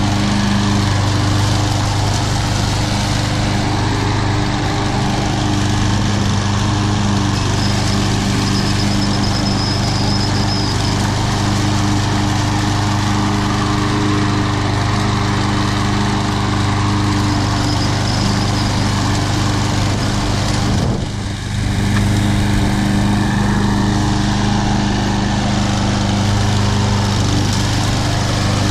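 Troy-Bilt TB230 walk-behind mower's single-cylinder Briggs & Stratton engine running steadily at mowing speed while cutting and mulching grass. The sound dips briefly about three-quarters of the way through.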